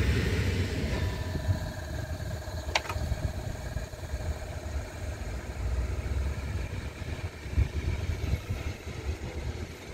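EN57 electric multiple unit pulling away from the platform: a low rumble of the wheels with a steady electric motor whine, fading as it moves off. There is a single sharp click about three seconds in.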